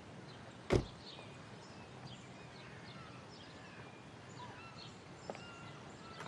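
Birds chirping and tweeting softly in the background. There is one sharp thump a little under a second in, and a faint click near the end.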